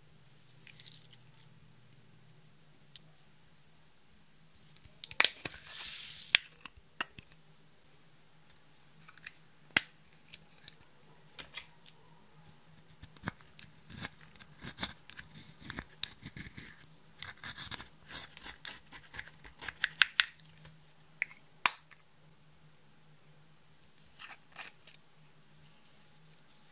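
Handling of small plastic makeup containers and lids: sharp clicks and taps scattered throughout. About five seconds in, a short rush of pink foam beads poured into a clear plastic tub; from the middle on, a plastic spatula scraping pressed eyeshadow out of its pan in a dense run of scratchy clicks.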